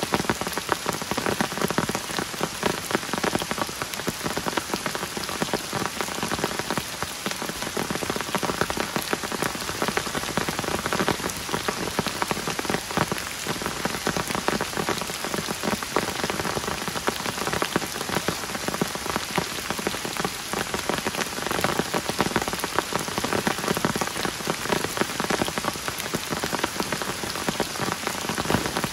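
Heavy rain falling steadily, a dense patter of many close drops striking surfaces.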